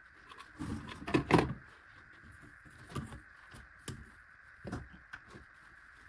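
The plastic corrugated hose and extension tubes of a wet/dry vacuum being handled and laid down on a wooden workbench. There is a bunched clatter of rustling and knocks about a second in, then a few single lighter knocks, over a faint steady high tone.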